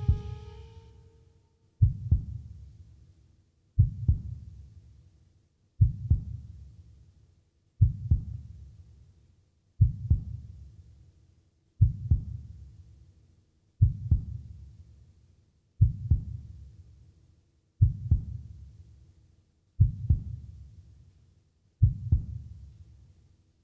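Low double thumps in a slow heartbeat rhythm, a lub-dub about every two seconds, twelve in all, each fading away before the next. A sung note dies away in the first second.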